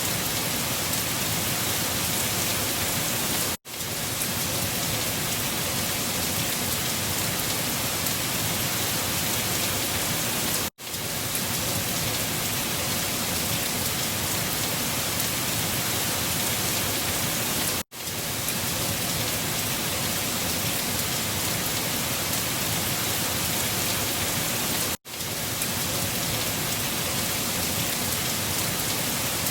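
Looped wind-storm ambience: a steady, even rushing noise with no gusting. It cuts out briefly four times, about every seven seconds, and fades straight back in where the short loop restarts.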